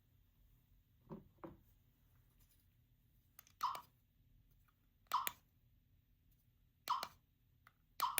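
Two soft knocks about a second in, then four sharp double clicks about a second and a half apart: a small plastic gachapon toy being clicked and handled.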